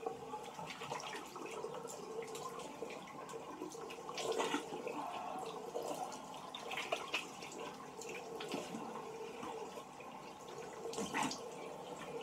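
Water running from a bathroom sink tap while it is splashed onto the face to rinse it, with a few louder splashes.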